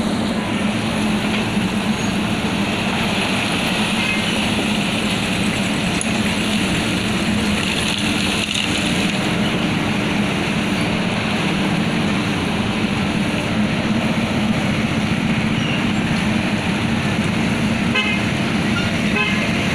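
JCB backhoe loader's diesel engine running steadily with a constant low hum while it works its digging arm.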